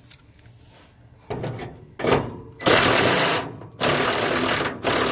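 Handheld power driver running in short bursts, three longer ones of under a second each in the second half, spinning off the nuts that hold a truck's front grille.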